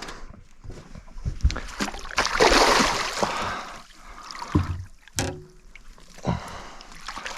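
Water splashing and streaming off a landing net holding a freshly netted barramundi, loudest for about a second near the middle, followed by a few sharp knocks against the boat.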